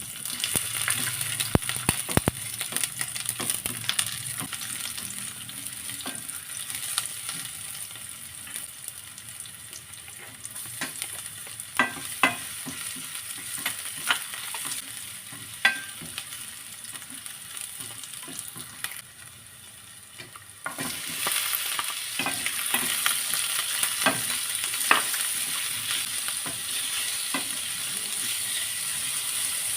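Food sautéing in hot cooking oil in a pan: a steady sizzle with the clicks and scrapes of a spatula stirring. About two-thirds of the way through the sizzle drops away briefly, then comes back louder.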